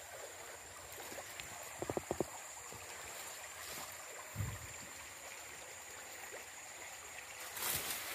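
Steady rush of flowing stream water, with a quick run of about four short clicks around two seconds in and a soft low thump a couple of seconds later.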